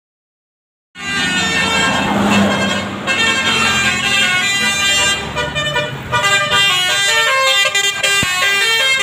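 A bus's Basuri telolet horn, a multi-tone air horn, playing a melody of several tones sounding together that change in quick steps, starting about a second in.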